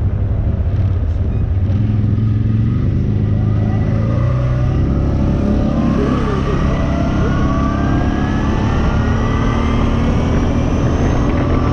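ATV engine running while riding, its pitch climbing steadily over several seconds as it speeds up, over a constant low rumble.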